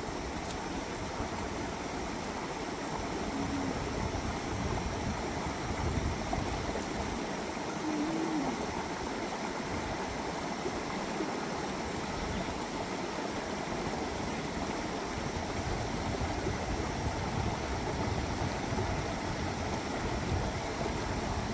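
Steady rush of a rocky forest stream flowing over stones.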